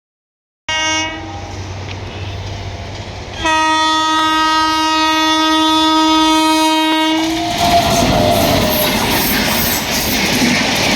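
Indian Railways express train horn: a short blast about a second in, then a long steady blast of about four seconds, as the Gondwana Superfast Express runs through the station without stopping. It gives way to the loud rush and clickety-clack of the train passing at speed.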